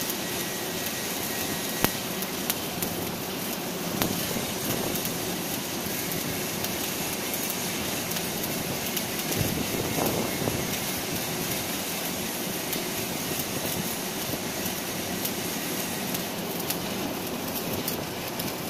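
Electric arc welding on steel plate: the arc gives a steady crackling hiss, with a few sharp pops scattered through it.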